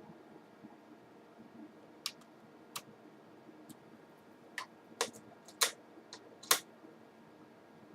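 Irregular sharp clicks and taps, about eight of them starting about two seconds in, the loudest three a little past the middle, from handling the laptop during a screen repair.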